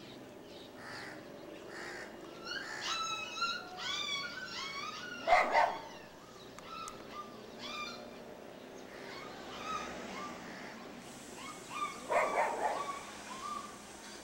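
A dog barking, loudest about five seconds in and again near the end, amid runs of short, high-pitched yelping calls.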